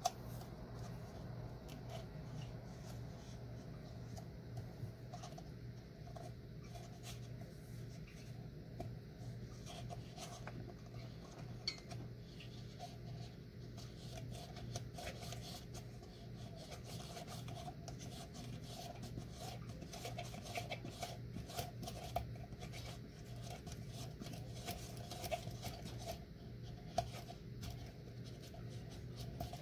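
A hand carving tool scraping and shaving the wall of a paraffin wax lantern in many short, irregular strokes, with a steady low hum underneath.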